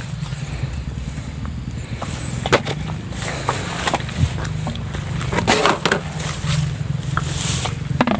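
Footsteps and rustling through grass while walking, with irregular crunches and swishes over a steady low rumble.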